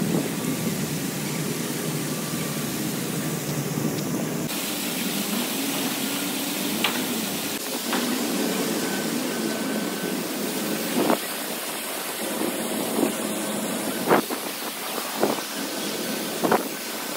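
Large public fountain jets splashing into a stone basin: a steady rush of falling water, with city traffic rumbling underneath. The low rumble drops away about four seconds in, and a few short sharp sounds come in the second half.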